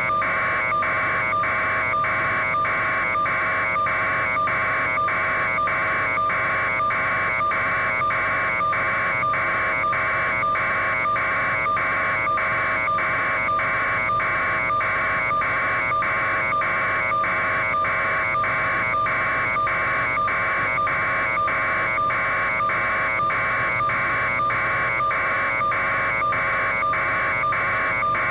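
A loud, steady electronic buzz that breaks in a regular pulse about twice a second, over a constant lower hum.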